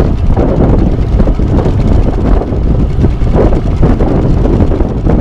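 Wind buffeting the microphone, loud and gusty, over the steady running of a small boat's outboard motor at trolling speed.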